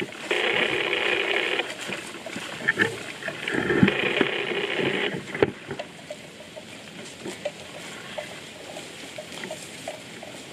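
Water buffalo grazing close by: grass being torn and chewed in many small crunching clicks, loudest in the second half. In the first half a steady rasping noise starts and stops sharply twice, each time for about one and a half seconds.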